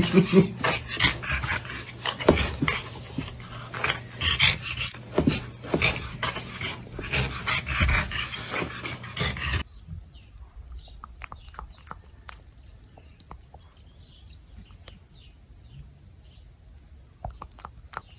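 A French bulldog panting hard and fast close to the microphone, a dense run of noisy breaths, for about the first half. It stops suddenly, leaving quiet with faint scattered crackles like dry leaves underfoot.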